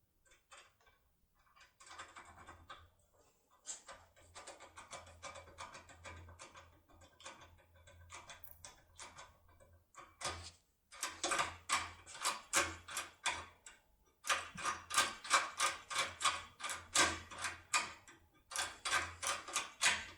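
Rapid metallic clicking and rattling of a foil-wrapped lockpick being jiggled in a Spanish FAC pin-tumbler cylinder lock, about three to four clicks a second. Faint at first, louder from about halfway.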